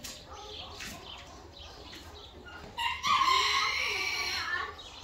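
A farmyard fowl gives one loud, drawn-out call of about a second and a half, near the end.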